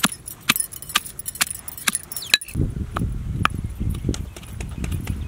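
Steel pestle pounding ginger and small onions in a small steel mortar: sharp metallic clinks about twice a second. About halfway through, a low rumble comes in and the strikes sound fainter.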